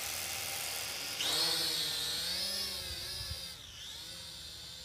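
Holy Stone HS110D quadcopter's motors and propellers whirring on the ground, then jumping louder and higher in pitch about a second in as the drone lifts off. The whine wavers up and down with the throttle and drops in level near the end as it climbs away.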